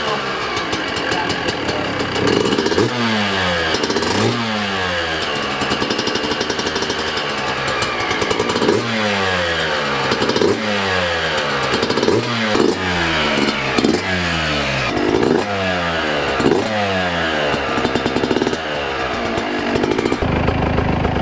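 Yamaha YZ125's freshly rebuilt 125 cc two-stroke single-cylinder engine running after its first start, its throttle blipped over and over so that the revs rise sharply and fall back about a dozen times.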